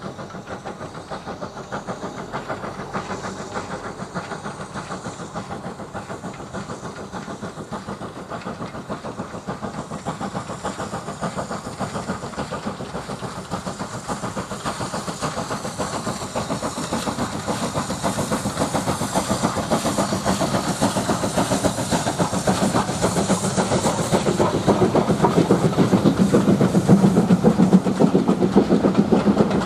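Steam locomotive hauling a passenger train and working steadily, its exhaust beats coming fast and even. The sound grows louder as the train draws near, loudest near the end.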